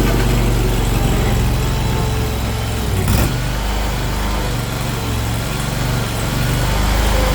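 Small engine of a compact machine (mini skid steer or mini excavator) running at a steady speed, with a single clank about three seconds in.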